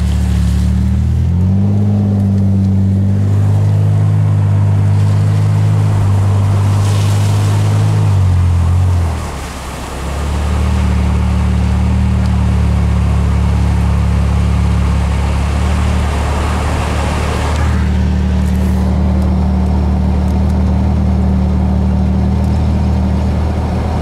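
Car engine and road noise heard from inside the cabin while driving. The engine note steps up in pitch about a second in, drops and fades briefly about nine seconds in, then picks back up and runs steadily.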